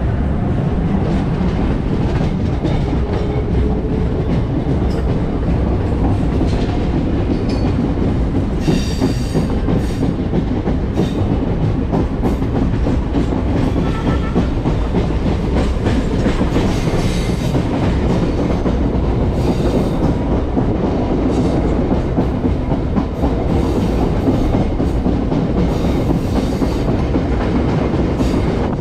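Chennai MRTS suburban electric train running along the track: a steady loud rumble with wheels clacking over the rails, and several brief high-pitched squeals or hisses now and then.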